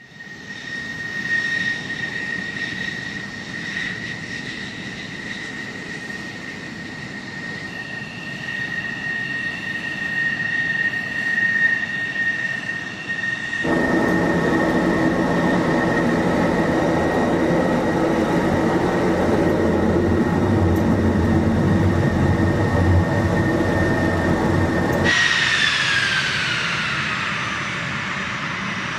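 Fighter jet engines running as the aircraft taxi. First an F-16's engine with a steady high whine; then, after a sudden change about 14 seconds in, louder F-16 engines with a deeper, fuller sound. Near the end, A-10 Thunderbolt II twin turbofans, their whine falling in pitch.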